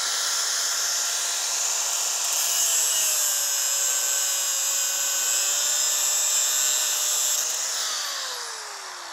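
Angle grinder with a cutoff disc cutting through a tractor PTO driveshaft's metal tube: a steady, loud, high-pitched grinding whine. Near the end the disc comes off the metal and the motor winds down, its pitch falling.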